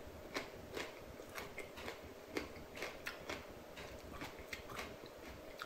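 Faint crunching of a raw green chili pepper being chewed: short, irregular crunches, about two or three a second.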